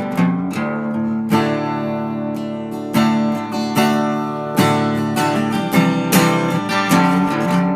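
Background music: acoustic guitar strumming chords, with a new chord struck about every second and a half.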